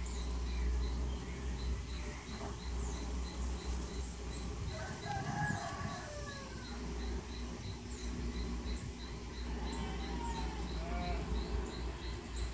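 A bird calling: one long call with several pitched tones about five seconds in, and shorter calls around ten and eleven seconds. Underneath is a faint, high chirping that pulses about three times a second.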